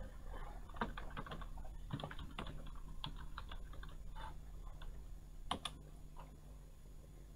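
Computer keyboard keys clicking as a word is typed: a quick, uneven run of keystrokes for a few seconds, then a single louder keystroke about five and a half seconds in.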